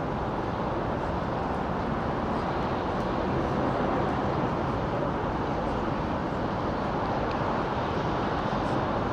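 Steady outdoor city ambience: a continuous low rumble of traffic, swelling slightly a few seconds in, with a few faint ticks.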